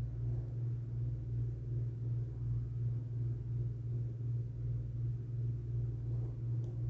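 A steady low hum that throbs evenly about two to three times a second.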